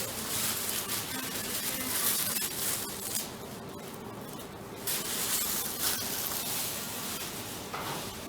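Wood campfire burning, hissing steadily with scattered crackles and pops.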